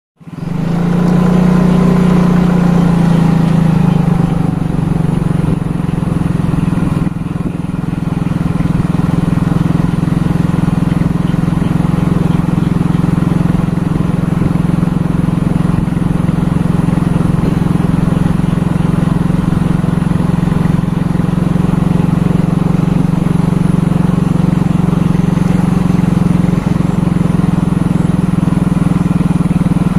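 A vehicle engine running at a steady pitch while travelling, with a higher whine that eases down slightly in the first few seconds.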